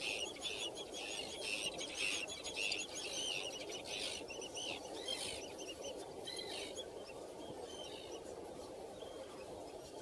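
Terns calling: many sharp, quickly repeated calls, dense through the first half and thinning out later, over a steady low background rush.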